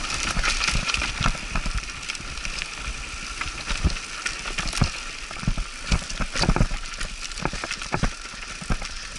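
Mountain bike riding down a rocky dirt singletrack: tyres crunching over loose stones and gravel, with irregular knocks and rattles from the bike as it goes over bumps.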